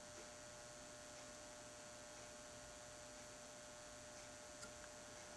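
Near silence: a faint steady electrical hum, with a couple of tiny ticks near the end.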